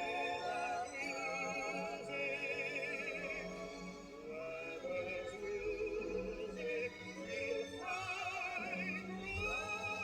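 A record playing operatic-style classical music: a melody line with heavy vibrato over an accompaniment.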